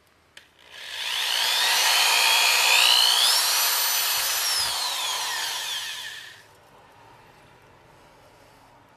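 Power drill with a 3/16-inch bit boring a hole through the thin metal of a stove body: it starts about a second in, its whine rising and falling with the load, and stops after about five seconds.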